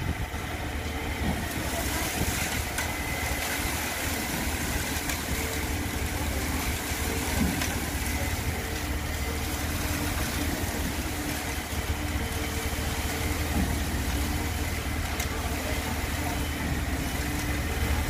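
Concrete pump's engine running steadily, with a low rumble and a steady hum, as concrete is fed through the delivery hose into column formwork.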